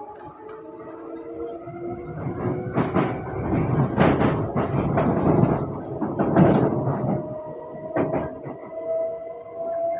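Kawasaki-Sifang C151B metro train running on the track, heard inside the car: its traction motor whine glides in pitch, falling at first and rising again near the end, over wheel-and-rail rumble and clatter that grows loud in the middle, with a sharp clack about eight seconds in.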